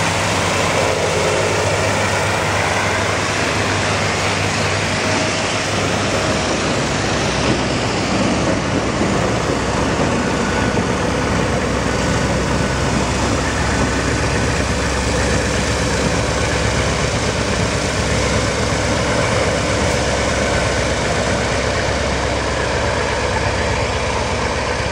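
Rail-washing work train passing close by: a steady broad hiss of the passing train, with a low diesel engine rumble that grows heavier about six seconds in as the locomotive comes by.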